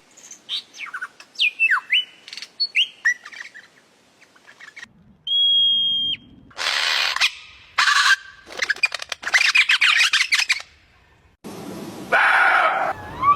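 A string of different bird calls one after another: short chirps and sliding whistled notes at first, a single steady whistle about five seconds in, then louder, harsher rapid trilling calls.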